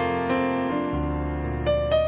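Background piano music: single melody notes over a held bass note that changes about a second in.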